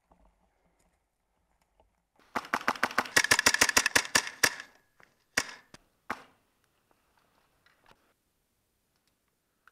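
Airsoft M4 with a PolarStar Jack compressed-air engine firing a rapid full-auto burst of about two seconds, a run of sharp cracks, followed by two separate single shots.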